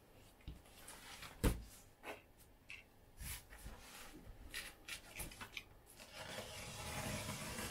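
Utility knife cutting and scraping through the packing tape on a cardboard box, with scattered clicks and a sharp knock about a second and a half in; a longer scratchy slicing sound builds near the end.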